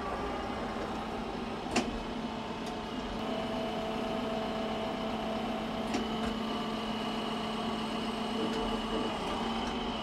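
TYM 754 tractor's diesel engine running steadily while the front-loader grapple picks up a log, with a high whine over the engine and two sharp clicks, one about two seconds in and one about six seconds in.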